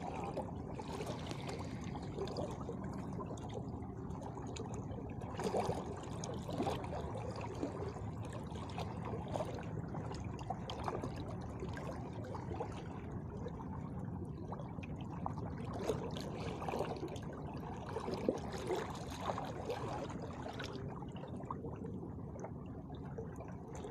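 Seawater sloshing and trickling among shoreline rocks, steady throughout, with scattered faint knocks and clicks.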